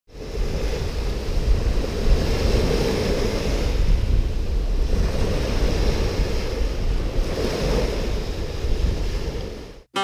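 Small waves washing up on a sandy beach, with wind rumbling on the microphone. The wash swells twice, then the sound cuts off sharply near the end.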